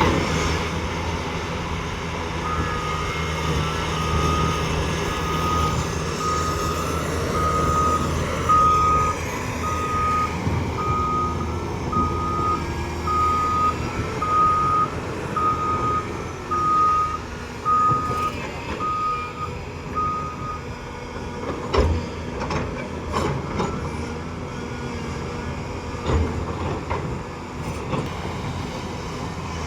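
Heavy diesel earthmoving machinery running steadily, with a reversing alarm beeping about once a second for much of the time. After the beeping stops, a few sharp knocks are heard.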